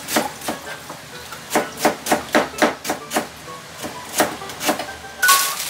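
Kitchen knife slicing myoga on a cutting board: a run of quick, uneven knife taps on the board, about three a second with short pauses. A louder, noisier sound comes near the end.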